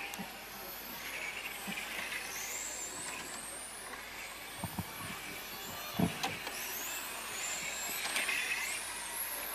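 Radio-controlled model cars racing round the track, their motors whining in high pitches that rise and fall as they speed up and slow down. There are a couple of brief dull thumps around the middle.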